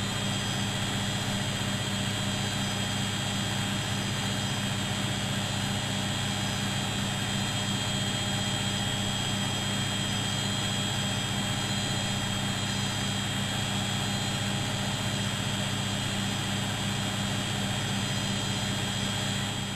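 Bosch WFM3010 washing machine in a high-speed spin: a steady, even whine over a low hum from the motor and drum.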